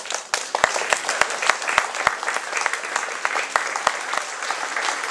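Audience applauding: dense, steady clapping from many hands. A few sharper, louder claps stand out at about three a second during the first two seconds, and twice more later on.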